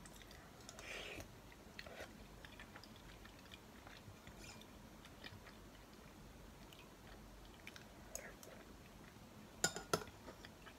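Quiet eating of sujebi from a spoon: soft chewing and a sip about a second in, with small faint clicks throughout. Near the end, two sharp clicks of the spoon against the bowl.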